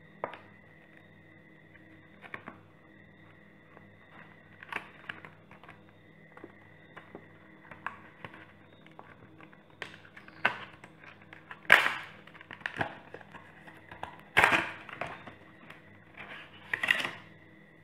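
Handling noises from a replacement phone battery and its plastic wrapping: irregular taps, clicks and crinkles, sparse at first and busier in the second half, with two louder knocks about twelve and fourteen and a half seconds in.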